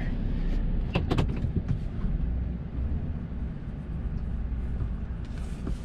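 Vehicle engine running with a steady low rumble as it drives, with a few sharp knocks or rattles about a second in.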